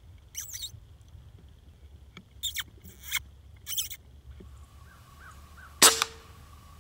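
A single shot from a Benjamin Marauder .25 PCP air rifle: one sharp crack near the end, followed a split second later by a softer knock.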